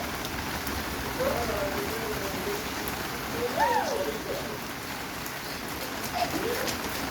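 Steady heavy rain pouring down, with a few brief voice calls rising and falling over it about a second in, near the middle and near the end.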